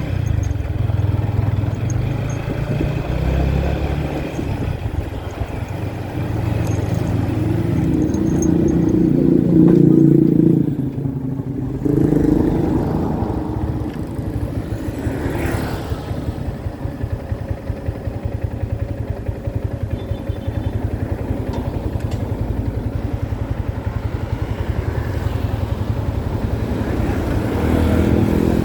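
Motorcycle engine running steadily, most likely the Yamaha MT-15's single-cylinder engine, with a louder stretch about eight to eleven seconds in.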